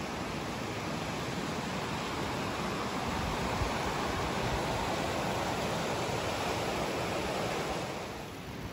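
Alpine river, the Brandenberger Ache, rushing over its stony bed: a steady rush of water that grows louder in the middle and drops off near the end.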